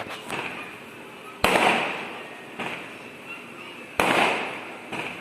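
Firecrackers going off: two loud bangs about two and a half seconds apart, each trailing off in an echo, with a smaller bang at the start and lighter pops between.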